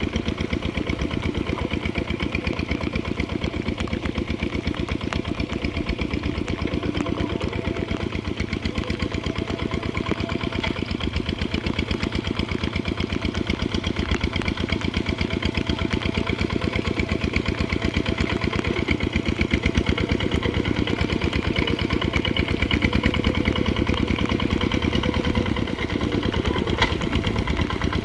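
Kubota RT140 single-cylinder diesel engine running steadily while ploughing, a rapid, even chugging with small rises and falls in level.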